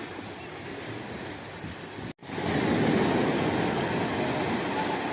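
A steady, engine-like rushing noise, centred low. It breaks off abruptly about two seconds in, returns louder, and then slowly fades.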